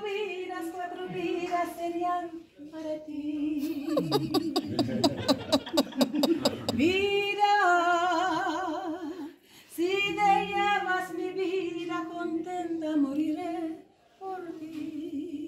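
A woman singing unaccompanied, holding long wavering notes in slow phrases. About four seconds in, a fast, even run of sharp taps sounds for a few seconds under her voice.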